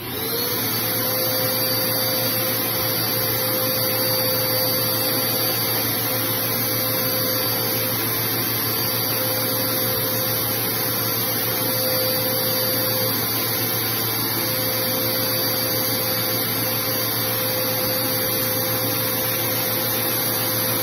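Dirt Devil Power Duo upright vacuum cleaner switched on, its motor whine rising to pitch within about half a second, then running steadily.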